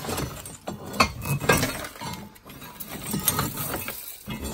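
Cast-iron fire grate clinking and scraping against brick and rubble as it is lifted and turned in a brick stove's firebox. The knocks come irregularly, the loudest about one and one and a half seconds in.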